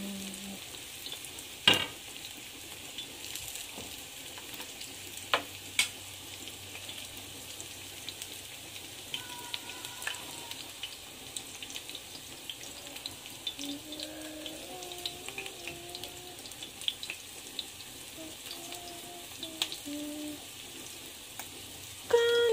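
Corn-fritter batter sizzling and crackling as it shallow-fries in hot oil in an enamelled cast-iron skillet. Metal spoon and tongs click sharply against the pan about two seconds in and twice around six seconds in.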